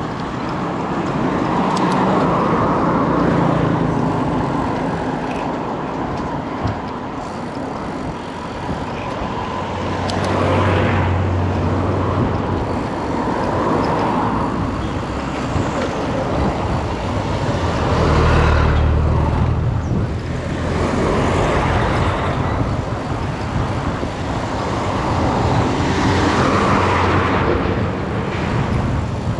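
Road traffic: several motor vehicles pass one after another, each swelling and fading, some with a low engine drone.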